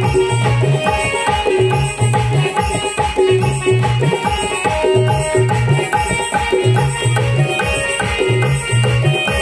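Instrumental music: a dholak hand drum keeps a steady rhythm with a deep low stroke recurring in a regular pattern, under an electronic keyboard playing a melody.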